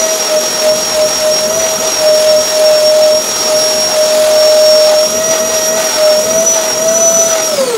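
Canister vacuum cleaner running with a steady high whine as its nozzle is worked over fabric sofa cushions. Near the end the motor winds down, its pitch falling away.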